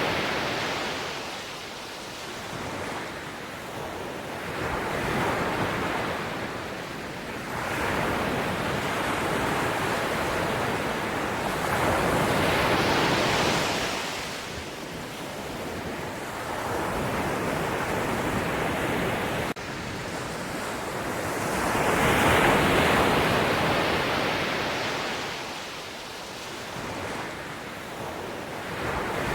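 Sea waves breaking and washing ashore, surging and fading in slow swells, with two bigger breakers, one near the middle and one about three quarters of the way through.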